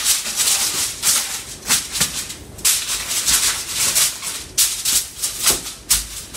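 Aluminium foil crinkling and rustling in irregular bursts as it is pressed and folded over a baking tray.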